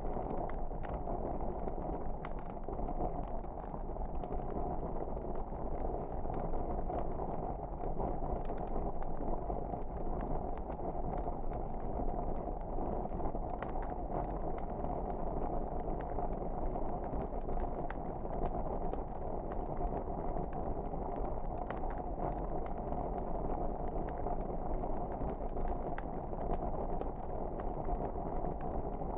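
Wood fire burning in a fireplace: a steady low rumble with frequent small crackles and pops scattered throughout.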